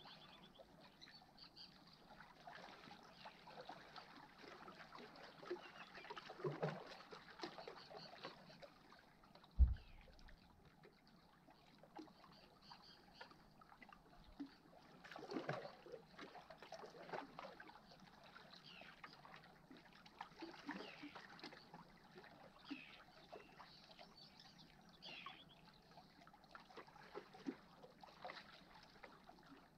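Faint lapping of small waves against shoreline rocks, with a single low thump about ten seconds in.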